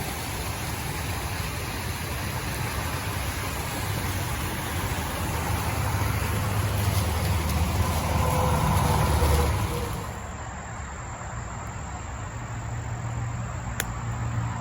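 Motor vehicle noise: a steady rumble and hiss that swells about six to nine seconds in, then drops suddenly to a quieter low hum.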